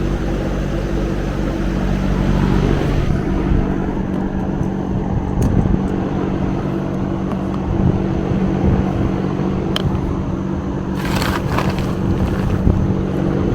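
A steady low mechanical hum from a running machine, with a few sharp clicks and a brief clattering handling noise about eleven seconds in.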